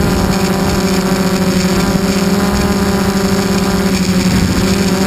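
RC model airplane's motor and propeller running steadily at constant throttle, heard from a camera mounted on the plane: a loud, even drone.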